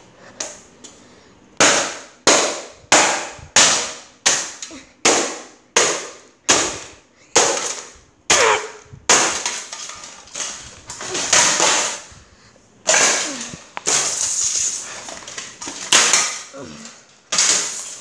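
A cheap plastic-and-wire box fan being smashed on a concrete floor: about a dozen sharp cracks, roughly one every two-thirds of a second, starting about two seconds in, then longer crunching crashes through the second half.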